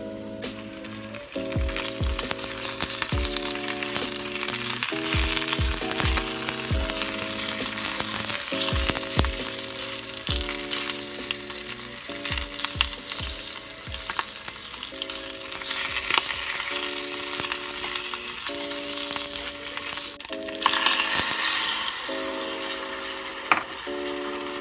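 Garlic and pork belly frying in oil in a glass pot: a steady sizzle that grows louder about twenty seconds in. Background music with soft chords plays under it.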